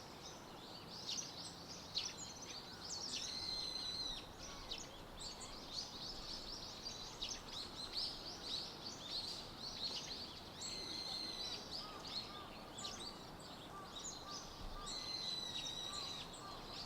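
Many birds chirping and calling at once, with a longer, buzzier call standing out three times, over a steady low background hush.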